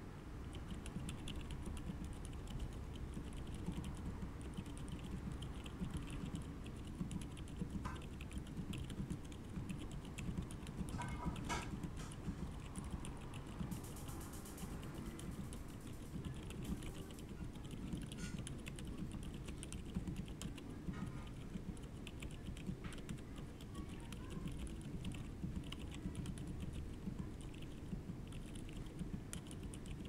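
Continuous fast typing on a mechanical keyboard fitted with stock 68g Outemu Silent Forest silent tactile switches, the board sitting directly on a wooden desk without a deskmat. The keystrokes are soft and low, with a few sharper clicks mixed in.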